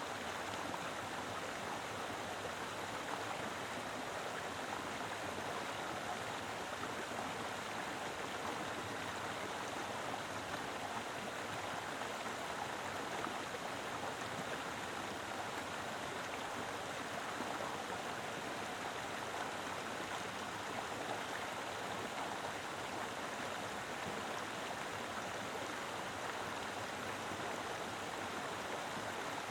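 Mountain river flowing: a steady, even rush of water over rocks, with no breaks or single events.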